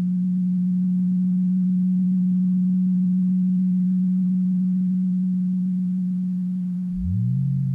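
Eurorack modular synthesizer putting out a steady, low, pure tone. About seven seconds in, a second, lower tone sweeps up from very low and holds just beneath it.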